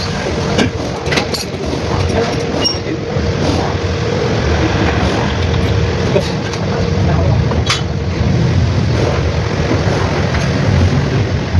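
An engine running steadily, a continuous low rumble with scattered light clicks and clinks over it.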